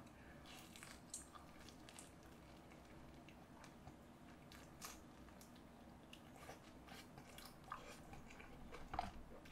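Faint close-up chewing of a bite of guobaorou, crispy batter-fried pork, with scattered soft wet mouth clicks.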